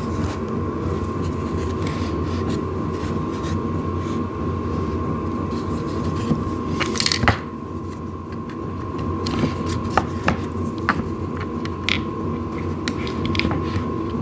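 A steady low hum with a thin high tone, over which wooden table panels give scattered light knocks and scrapes as they are handled and lined up for screws.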